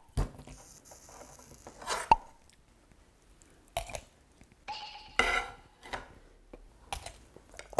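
Crunchy snap of teeth biting through the casing of a kielbasa sausage, crisp enough to be likened to crunching kkakdugi radish kimchi, followed by chewing. A few scattered clicks before and after.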